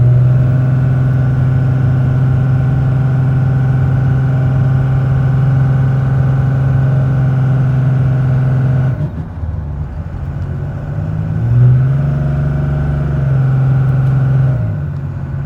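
Cummins 5.9 L inline-six turbodiesel of a 2001 Ram 2500 pulling steadily under load up a steep hill. It eases off about nine seconds in, pulls hard again from about eleven seconds, then drops back near the end.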